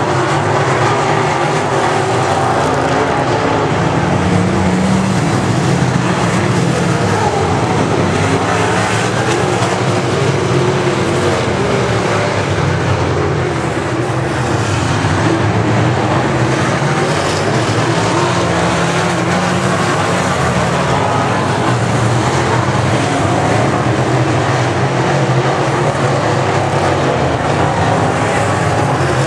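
A pack of dirt late model race cars with steel-block V8 engines racing on a dirt oval, engines at full throttle in a loud, steady din.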